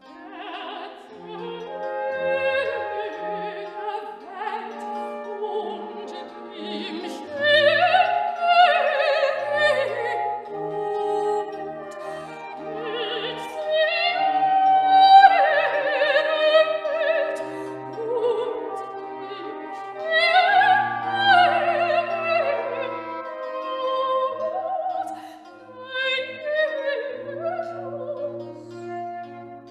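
Classical music: an operatic voice sings long phrases with vibrato over an orchestral accompaniment of sustained strings and a bass line.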